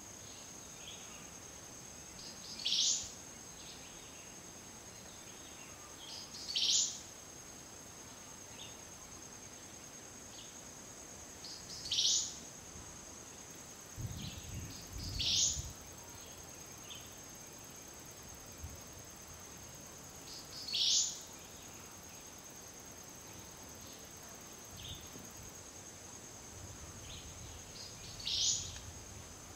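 Tropical forest ambience: a steady high-pitched insect drone, with a short rising call repeated six times, a few seconds apart. A brief low rumble about halfway through.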